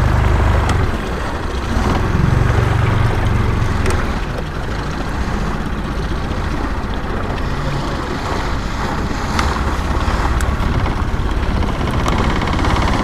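A 20 HP Yamaha long-shaft outboard motor running steadily at trolling speed on a small boat.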